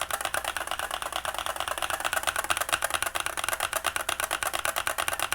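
Fast, continuous typing on a Keychron K8 mechanical keyboard fitted with Holy Panda tactile switches and XDA-profile PBT keycaps: a dense, steady stream of keystroke clacks.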